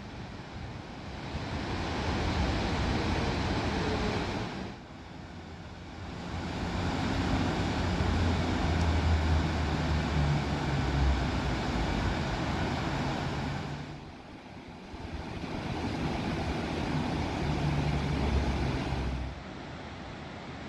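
Road traffic passing on a highway overpass, swelling and fading in three waves, the later two with a deep engine drone. Underneath is a steady rush from foaming floodwater rapids.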